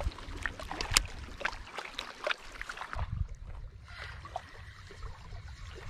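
Wind rumbling on the microphone and water lapping at a rocky shore, with a run of light clicks and taps in the first few seconds from handling the spinning reel and rod.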